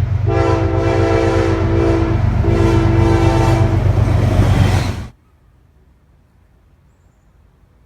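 Amtrak diesel locomotives running loudly with heavy engine rumble, the five-chime Nathan K5LA horn sounding two long blasts. The sound cuts off abruptly about five seconds in, leaving only faint background noise.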